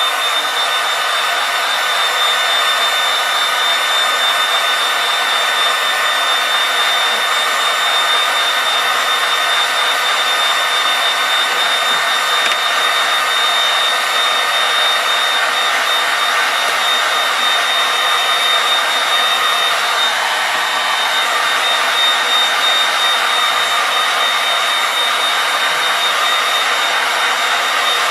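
Heat gun running steadily, a constant rush of blown air with a thin high whine over it, heating a sheet of HDPE plastic until it softens.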